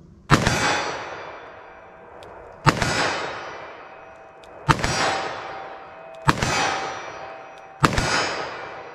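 Five .357 Magnum revolver shots fired double action with Hornady LEVERevolution 140-grain FTX loads, coming a little faster as the string goes on, from about two and a half seconds apart down to about one and a half. Each is a sharp crack followed by a long ringing echo that fades over more than a second.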